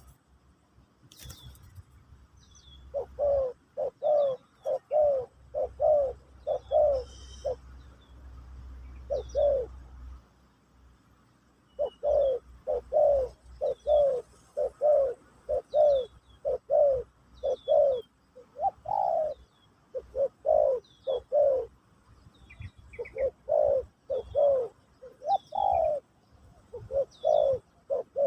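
Spotted dove cooing: long runs of short, low coos in quick succession, broken by a pause of about two seconds partway through before the cooing resumes. Small birds chirp faintly and high in the background.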